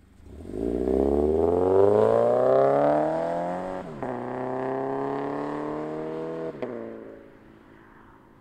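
Subaru BRZ's flat-four engine through a Nameless Performance cat-back exhaust, launching from a standstill. The engine note climbs hard and is loudest about two seconds in, drops sharply at an upshift about four seconds in, climbs again, shifts once more, then fades as the car pulls away.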